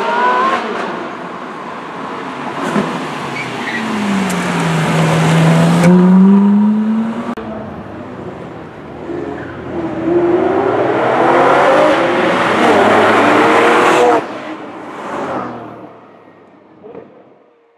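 Ferrari sports car engines revving hard and accelerating, their pitch climbing and falling in several loud bursts. The loudest run cuts off abruptly near the end and the sound then fades away.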